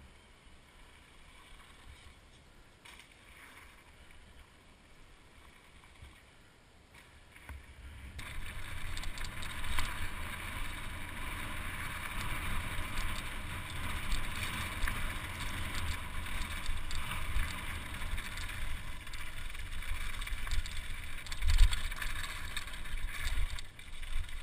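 Helmet-mounted camera on a mountain bike descending a rough, rocky dirt trail. The first several seconds are fairly quiet; from about eight seconds in, speed picks up and there is a steady rush of wind on the microphone with a rumble and rattling from the tyres and bike over the ground. A heavy thump comes a few seconds before the end.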